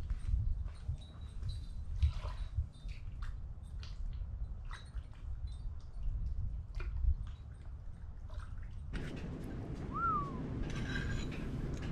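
Outdoor background sound: an uneven low rumble with scattered faint bird chirps and clicks. About nine seconds in, the background gets louder and fuller, and a single short rising-and-falling bird chirp stands out.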